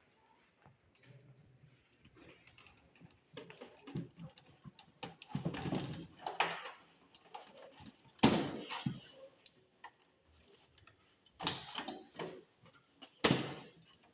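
Power supply cables being unplugged from components inside a desktop computer case: scattered plastic clicks and knocks of connectors and cables being handled, with sharp knocks about eight and thirteen seconds in.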